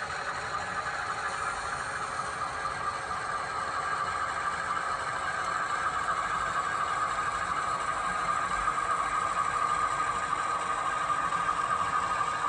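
HO scale model freight cars rolling past on the track, their small metal wheels making a steady rolling whir that grows a little louder as the cars pass.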